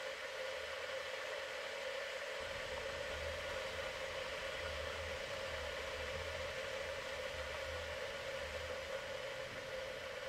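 Steady hiss with a constant hum, and a deep pulsing rumble that comes in about two seconds in.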